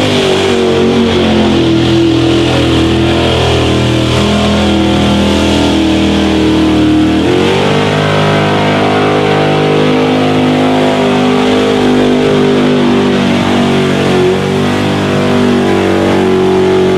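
Jeep CJ mud truck's engine held at high revs under full throttle as it pushes through deep mud. The pitch steps up sharply about seven seconds in and holds steady there.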